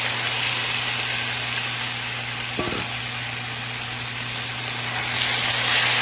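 Raw seasoned chicken pieces sizzling in hot oil with browned onions in a frying pan, just added. There is a brief knock near the middle, and the sizzle swells about five seconds in as a wooden spoon stirs the chicken.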